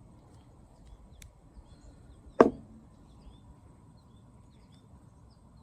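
A jar set down once on a hard surface with a sharp knock, about two and a half seconds in, with faint bird chirps in the background.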